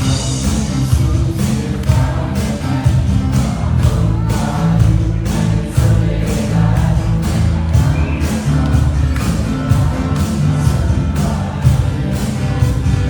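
Worship band music with a steady drum beat, heavy bass and a singing voice.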